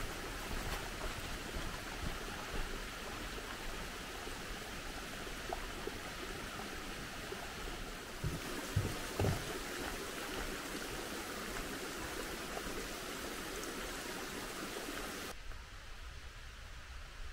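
Mountain stream rushing, a steady water noise, with a few soft low thumps about halfway through. Near the end the higher part of the rushing drops away suddenly.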